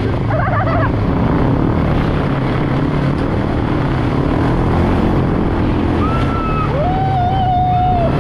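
An engine runs steadily under heavy wind noise on the microphone. Two short whistle-like tones come near the end, the second one longer.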